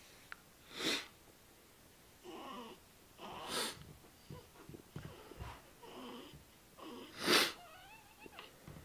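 A baby hiccupping three times, three to four seconds apart, each hiccup a short sharp breathy catch. Soft fussing noises fall between the hiccups, more of them near the end.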